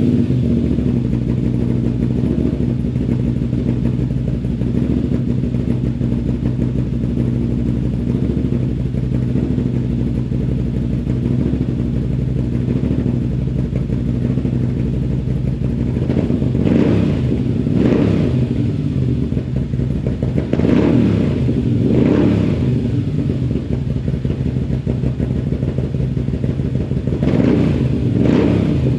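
A 2021 Moto Guzzi V7's air-cooled transverse V-twin runs through an Agostini short exhaust with the dB killers removed. It idles steadily at first, then from about halfway through it is revved in about six short throttle blips.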